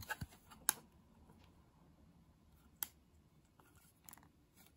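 Hard plastic graded-card slabs clicking against each other as they are handled: a few sharp, separate clicks, the loudest just under a second in and another near three seconds, with smaller ticks around four seconds.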